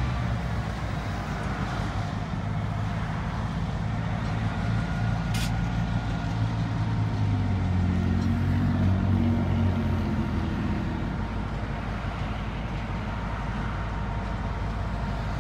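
Diesel engine of a small switch locomotive running, a steady low drone that swells louder and a little higher about eight seconds in, then settles back.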